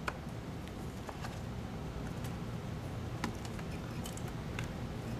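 Scattered light clicks and rustles of hands handling wiring, connectors and plastic parts behind a motorcycle's front fairing, about seven small ticks spread irregularly over a low steady background hum.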